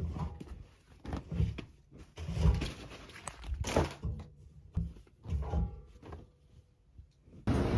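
Freshly washed laundry thrown onto a wooden floor, one armful at a time: about five soft thuds, each with a rustle of fabric.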